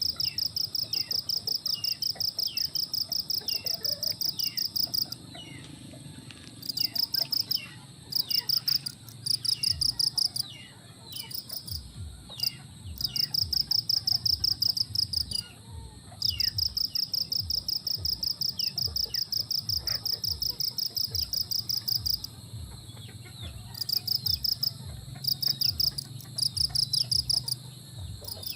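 Insects trilling in fast pulsed runs of several seconds, broken by short pauses. Scattered short, high, falling bird chirps sound over them, and soft low thumps come in the second half.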